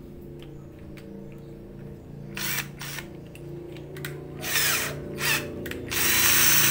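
Bull 20 V cordless hammer drill boring into a masonry wall with an 8 mm bit, run in short bursts. There are four bursts, the last and longest near the end.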